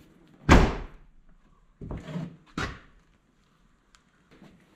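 Cab door of a Kawasaki KRX1000 UTV's glass cab being shut: a loud bang about half a second in, then a duller clunk and another sharp knock as the door and latch are worked after an adjustment.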